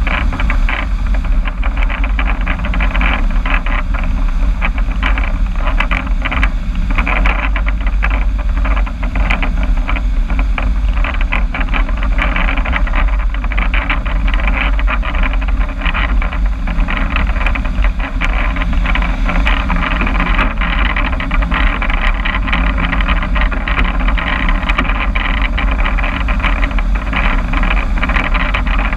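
Car engine running steadily through a newly fitted exhaust, with a strong deep low end under a grainy, even noise.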